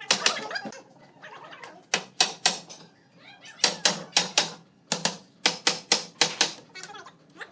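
Sharp knocks and taps on wood, coming in quick clusters of two to four strikes separated by short pauses.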